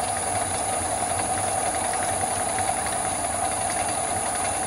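A metal-turning lathe running steadily at about 500 rpm, with its spindle and gear train turning while the stepper-driven electronic lead screw feeds the carriage. It makes a steady mechanical whirr with a constant higher whine.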